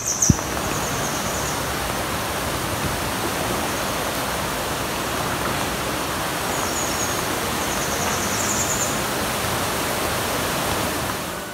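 Steady rush of a waterfall and fast-flowing river water in a rock canyon. There is a short knock near the start and faint high chirps twice.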